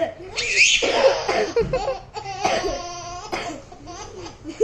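Hearty laughter in repeated peals, set off by coughing and sneezing.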